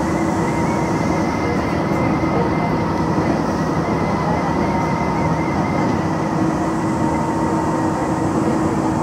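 Tobu Railway electric train running steadily at speed, heard from inside the front car: a continuous rumble of wheels on rail with steady whining tones over it.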